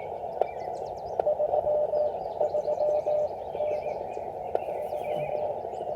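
Morse code (CW) on the Elecraft KX3 transceiver: a single pitched tone keyed in dots and dashes over steady hiss from the receiver's narrow CW filter. Birds chirp faintly in the background.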